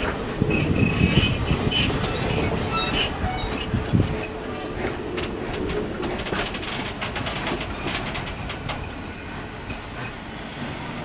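Passenger coaches of a heritage steam train rolling slowly past at close range, their wheels clicking and clacking over the rails, with one loud knock about four seconds in. A faint steady whine runs through the first half, and the sound fades as the coaches move away.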